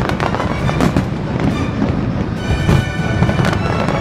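Fireworks bursting in a rapid run of bangs and crackles, thickest in the first second and again near the end, over music with long held notes.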